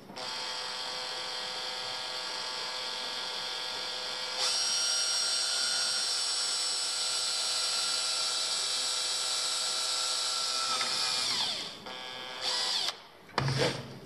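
Cordless drill running steadily as it drills a hole, its speed stepping up about four seconds in. It winds down about eleven seconds in, then gives two short bursts near the end.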